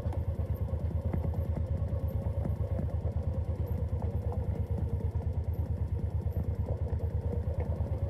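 An engine idling steadily with an even, rapid low chug.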